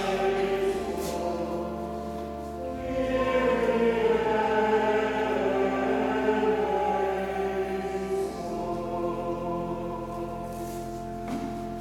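Church choir singing slow, sustained chords over steady low organ notes, the chords changing every few seconds. The sound dies away in the church's echo right at the end.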